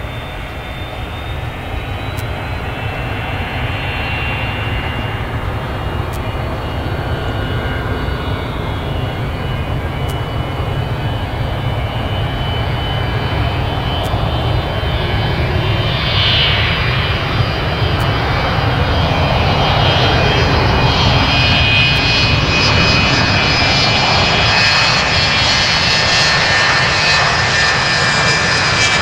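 The two tail-mounted Pratt & Whitney JT8D-200-series turbofans of a McDonnell Douglas MD-82 at takeoff power during the takeoff roll. A steady jet roar with a high whine over it grows steadily louder as the airliner accelerates down the runway.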